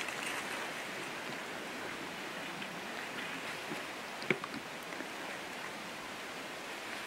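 Steady outdoor background hiss in quiet woodland, with a few faint small clicks and one sharper click about four seconds in.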